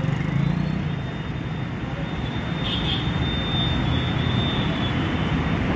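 Steady noise of busy road traffic passing, with a brief high-pitched sound about three seconds in.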